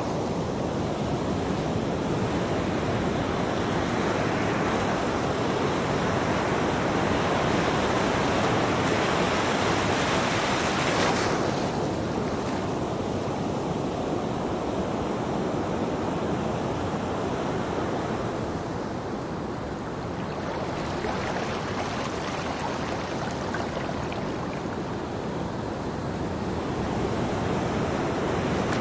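Ocean surf on a beach: waves breaking and washing back in long swells. The wash is fullest in the first third, drops back about eleven seconds in, dips lowest about two-thirds through, then builds again.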